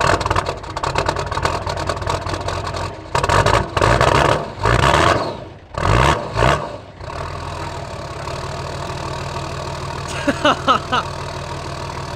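Nissan Patrol ute's TD42 six-cylinder diesel, just cold-started on a freezing morning, running rough and revved several times, then settling into a steady idle about seven seconds in.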